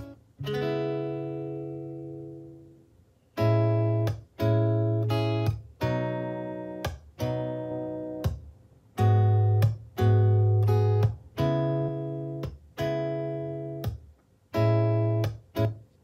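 Instrumental guitar beat played through an Anker Soundcore Motion Plus Bluetooth speaker in a small room for an audio test: plucked guitar notes over a heavy, deep bass line. The music breaks off briefly about three seconds in and again near the end.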